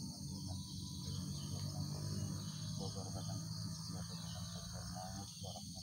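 Steady, high-pitched chorus of insects, crickets or similar, trilling without a break over a low, even hum.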